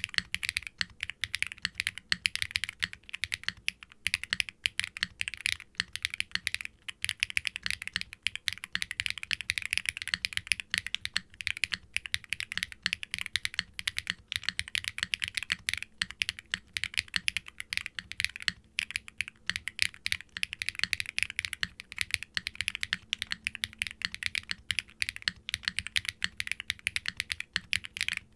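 Fast, continuous typing on a mechanical keyboard with Keygeek B1 linear switches and GMK doubleshot ABS keycaps in an aluminium Wilba.tech Salvation case with no dampening: a dense run of sharp, clacky keystrokes with a few brief pauses. The glass-fibre-filled switch bottom housings are built to make a loud clack.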